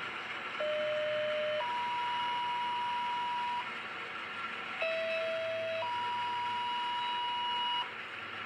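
Two-tone sequential paging tones over a scanner radio, sent twice: each time a steady lower tone for about a second steps straight up to a higher tone held about two seconds, over constant radio hiss. This is a fire-dispatch tone-out that sets off the paging alert.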